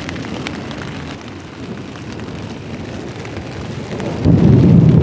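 Heavy rain pelting a tent, a steady hiss. About four seconds in, a much louder deep rumble of thunder sets in and keeps going.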